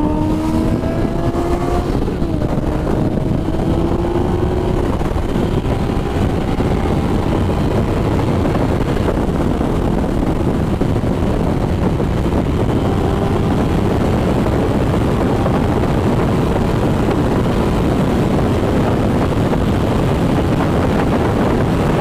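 Yamaha XSR900's inline-three engine under hard acceleration at highway speed, its note climbing in pitch through the first few seconds with a gear change about two seconds in. After that it is largely buried under a steady rush of wind noise on the microphone.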